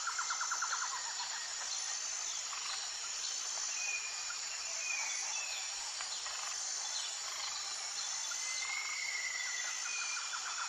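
Birds singing over a steady high-pitched chorus of insects. There is a rapid trill in the first second, then scattered short whistled notes and one longer whistle near the end.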